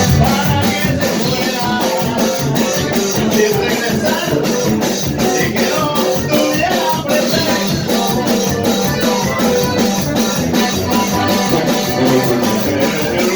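Mexican banda music with a steady drum beat under pitched brass-band instrument lines.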